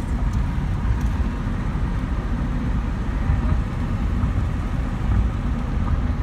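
Steady low road and engine rumble inside a car's cabin while driving on a highway.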